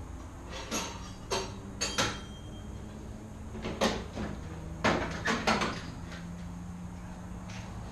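A series of sharp knocks and clatters of parts and tools being handled, about eight in all with a cluster near the middle, over a steady low hum.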